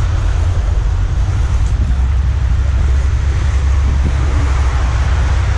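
Steady wind noise on the microphone of a bicycle being ridden along, heard as a loud low rumble with a rushing haze over it.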